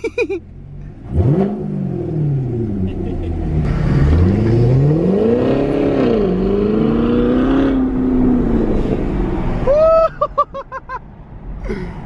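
Chevrolet Corvette V8 on new exhaust tips, accelerating: a quick rev that rises and falls about a second in, then a longer pull that climbs, holds and fades out near ten seconds. A person's voice cuts in briefly near the end.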